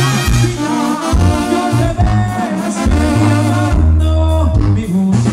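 Latin-style music with singing over a bass line of held low notes.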